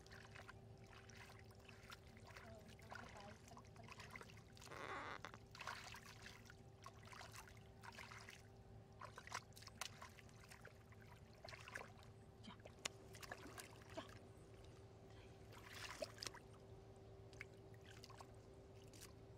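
Hands splashing and squelching through shallow muddy water, faint, in scattered small splashes, with longer sloshes about five seconds in and again near sixteen seconds. A faint steady hum lies underneath.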